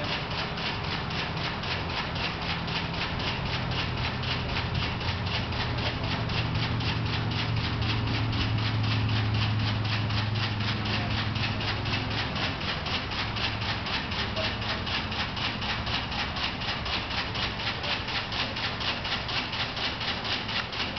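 Newman's large drum motor running, with a fast, even clicking about four times a second and a low hum that swells about halfway through and then fades.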